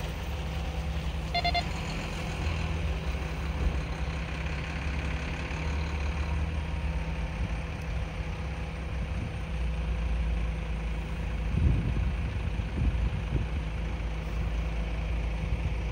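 A heavy vehicle engine idling steadily, with wind gusting on the microphone now and then.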